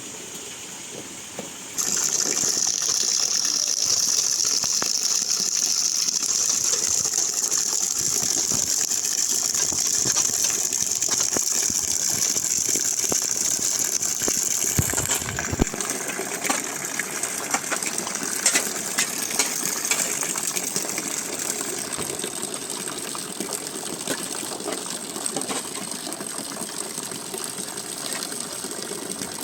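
Heavy rain falling, a loud steady hiss that starts abruptly about two seconds in and eases into a broader patter with scattered drop clicks from about fifteen seconds on.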